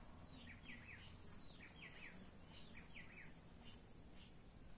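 Faint wild birdsong: repeated short, downward-sliding chirps in quick groups of two or three, over a steady high insect buzz.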